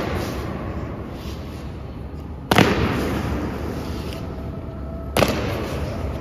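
Guards' boots stamping on the stone floor in a slow ceremonial march: two sharp strikes about two and a half seconds apart, each ringing on in the echoing hall.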